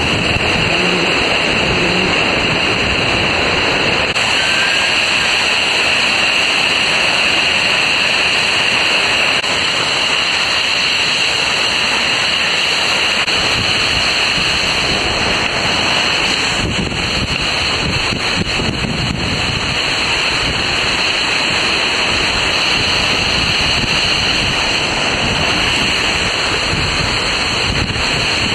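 Steady rush of flowing water on a water coaster slide, a loud continuous noise with no distinct events.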